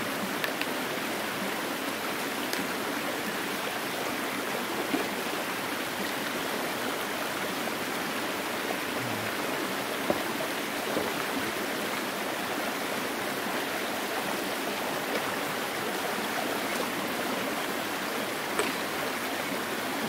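Shallow rocky creek flowing steadily, a continuous rushing ripple of water over stones, with a few faint clicks now and then.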